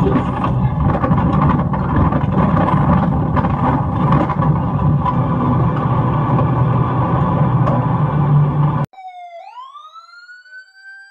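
Loud, steady rumble and rushing noise with scattered knocks from a car's dashcam as the car goes into the river and water washes over the bonnet. About nine seconds in this cuts off abruptly, and a quieter synthesized siren-like tone sweeps up in pitch and then holds.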